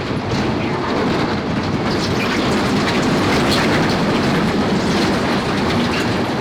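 Loose riprap stone being tipped from a dump truck: a dense, steady rumble of rocks clattering and tumbling.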